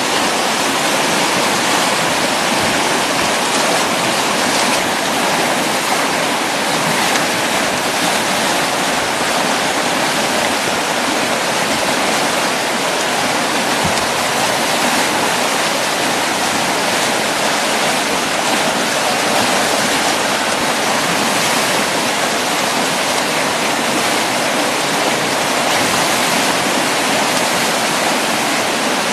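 Loud, steady rushing of whitewater churning through a river rapid.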